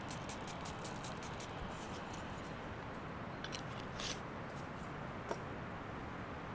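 Wooden stick stirring a dry flour-and-spice mix in a bowl: a quick run of small scratchy clicks that stops about two and a half seconds in, then a few lone clicks over a steady low hiss.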